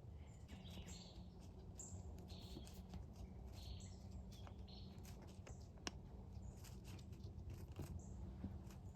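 Faint short bird chirps, repeated irregularly, with scattered light ticks and rustles.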